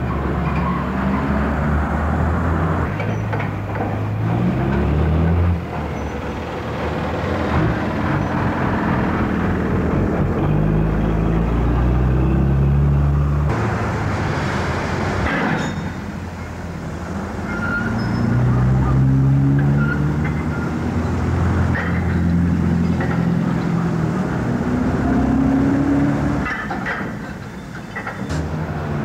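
An engine running under changing load: a low hum that climbs in pitch in steps and drops back several times, with a few sharp clanks.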